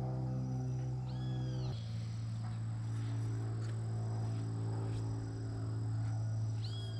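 A bird giving a short arching high call twice, about a second in and again near the end, over a steady low droning tone that steps down in pitch once, like background music.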